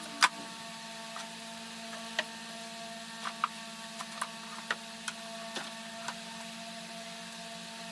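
Scattered light clicks and knocks of objects being handled, about a dozen irregular ones with the loudest near the start, over a steady electrical hum.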